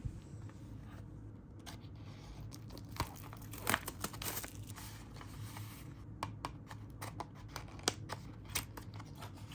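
Album packaging being unwrapped and handled: tearing and crinkling, with scattered sharp clicks and a louder rustle about four seconds in, over a steady low hum.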